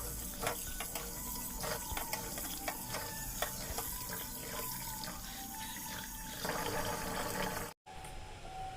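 Water running from a kitchen tap into the sink, with light knocks and clinks of utensils; it cuts off suddenly near the end.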